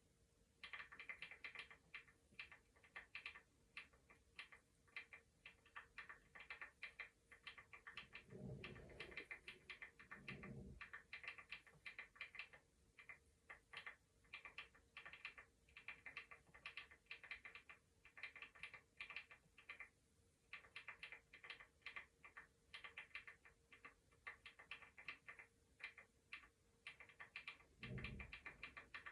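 Computer keyboard typing: quiet runs of rapid key clicks with short pauses between them. Three soft, dull thuds, two close together about a third of the way in and one near the end.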